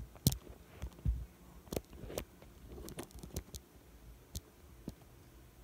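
Irregular sharp clicks, taps and knocks of small hard parts and tools being handled, the loudest about a third of a second in, with a duller thump about a second in.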